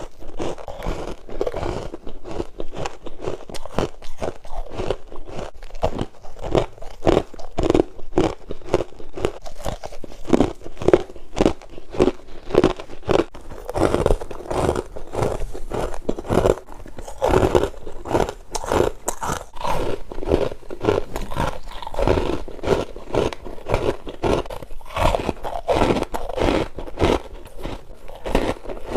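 Freezer frost being bitten and chewed: a continuous run of dense crunches, several a second, with no let-up.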